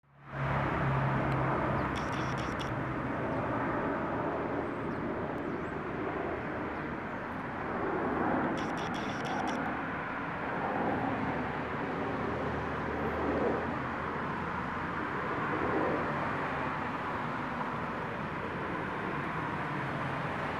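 Steady outdoor background noise like distant traffic. A camera lens's autofocus motor whirs briefly twice, at about 2 s and again around 8.5 s. A bumblebee's low wing buzz is heard near the start and again near the end as it takes off.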